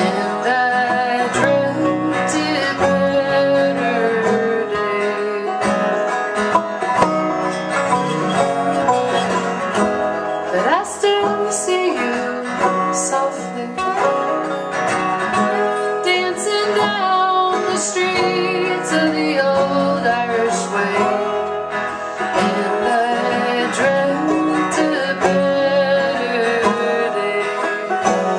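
Acoustic folk trio playing a song live, led by busily picked string instruments with a twangy, banjo-like sound. A note slides upward about ten seconds in.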